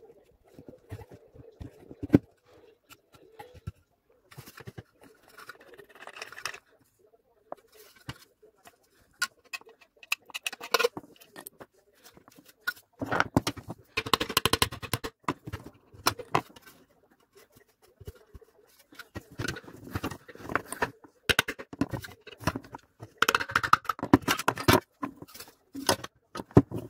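Hands and pliers working on a blender's motor base: irregular clicks, knocks and scraping of plastic and metal as the plastic drive coupling is worked off the motor shaft. There are two longer stretches of dense scraping and rattling, about halfway through and near the end.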